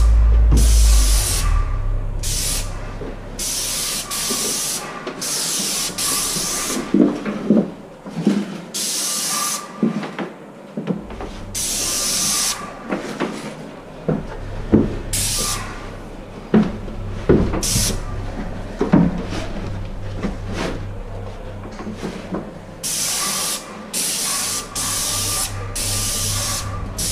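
Airless paint spray gun with a 310 fine-finish tip spraying primer in repeated short bursts, each hiss starting and stopping sharply with a trigger pull. A few clicks fall between bursts over a steady low hum.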